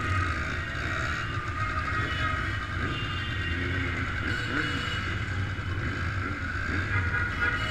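Motorcycle engines running steadily at low speed: a steady low drone.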